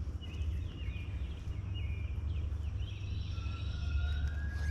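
Birds calling outdoors: a quick series of short, falling chirps, then a long thin whistling note that rises slightly near the end, over a steady low rumble.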